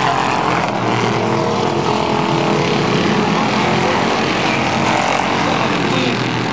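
Pure Stock race car engines running hard as the cars lap the oval, a loud, steady, unbroken engine noise.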